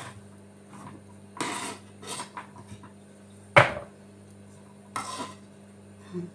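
Kitchen knife slicing carrots on a bamboo cutting board: about six separate, irregular knocks of the blade striking the board, the loudest about three and a half seconds in.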